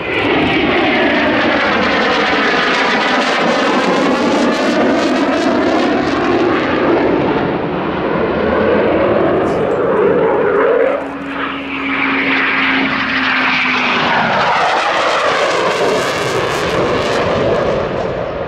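Eurofighter Typhoon's twin jet engines, loud and continuous as the fighter manoeuvres overhead, with a hollow tone sweeping up and down in pitch as it moves. The noise dips briefly about eleven seconds in, then builds again.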